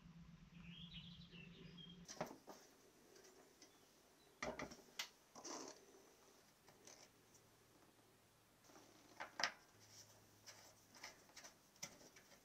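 Near silence, broken by a handful of faint, short clicks and knocks at uneven intervals.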